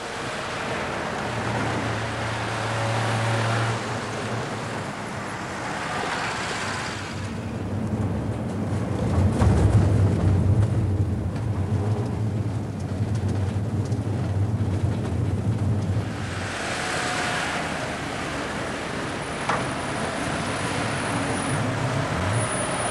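A van's engine running on the road with tyre and traffic noise: a steady low drone that grows louder through the middle, then gives way to a hiss of passing traffic near the end.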